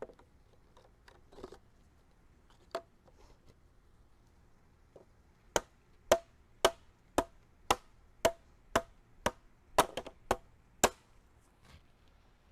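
Hammer blows driving a raised garden bed stacking stake into the ground: one knock, then a steady run of about eleven strikes, roughly two a second, starting about five and a half seconds in.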